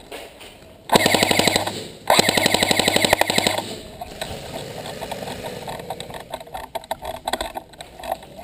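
Airsoft MP5K firing two full-auto bursts, about a second and a second and a half long, each a fast, even rattle of shots. These are followed by fainter scattered shots from other airsoft guns.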